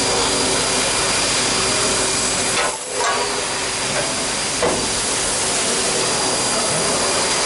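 QUICKTECH DT42-DUO CNC lathe running as a turret tool works a small brass part: a steady loud hiss with a faint high whine, dropping out briefly about three seconds in, with a click near five seconds.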